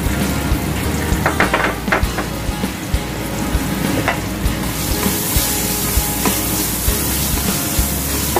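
Sliced onions and garlic sizzling in hot oil in a frying pan, with a few knocks a second or two in. About five seconds in the sizzle grows louder and brighter as the onions are stirred with a wooden spatula.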